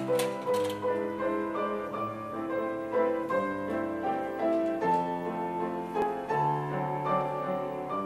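Piano playing a slow, gentle passage of held chords under a melody, the opening accompaniment of a choir anthem.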